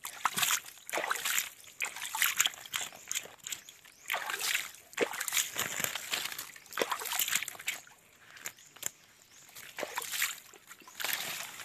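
Shallow muddy water being splashed and sloshed in irregular short bursts, one every second or so.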